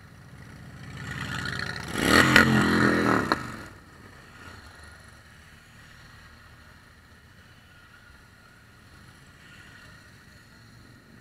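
A motorcycle riding past close by: its engine sound builds over the first two seconds, is loudest for about two seconds with a sharp click near the peak, then falls away. Quieter motorcycles keep passing after it.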